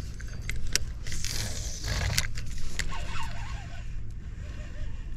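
Spinning reel being handled and cranked: sharp clicks from the reel in the first two seconds, then a faint whirr of the turning reel, over a steady low rumble.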